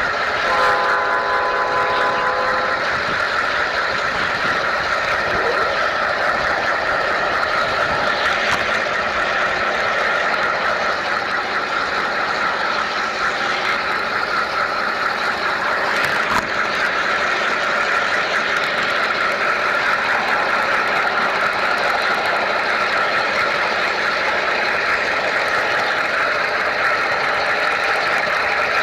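G scale model train running along its track, heard from on board: a steady whirring of motor, gears and wheels on the rails. A short horn sounds for about two seconds near the start.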